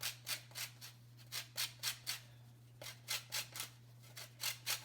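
Lemon being grated on the fine side of a hand grater to zest it: quick scraping strokes in runs of about four, with a short pause between runs.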